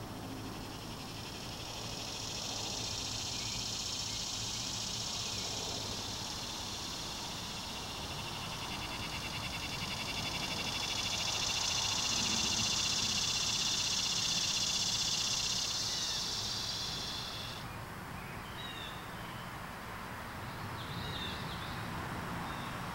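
A high, rapidly pulsing insect buzz that swells twice and cuts off suddenly about 18 seconds in, followed by a few short chirps, over a low steady background hum.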